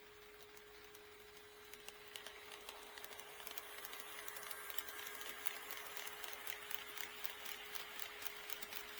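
HO-scale model train running on the layout, its wheels clicking rapidly over the rail joints. The clicking grows louder from about two seconds in as the train draws near, over a steady faint hum.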